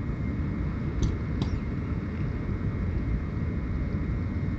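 Steady low rumble of railway-station ambience around an electric locomotive, with a faint steady high tone and two light clicks about a second in.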